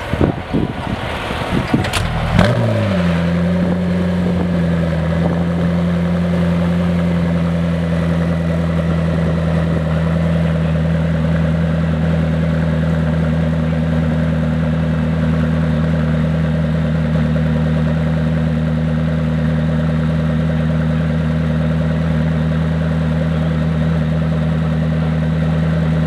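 McLaren P1 GTR's twin-turbo V8 starting up: it catches about two and a half seconds in, its note dropping as it settles into a steady idle.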